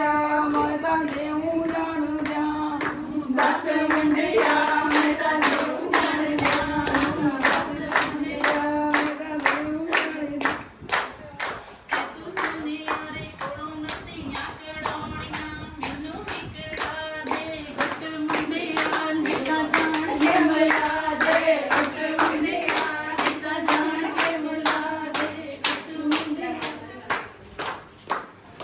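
A group of voices singing a Punjabi folk song, kept in time by steady hand clapping about twice a second; the singing fades out near the end.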